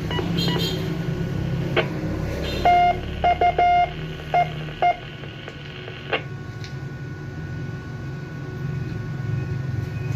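Morse code heard over a 2-metre amateur radio: a short run of dots and dashes as beeps at one mid pitch between about three and five seconds in, over a steady low hum, with a couple of sharp clicks.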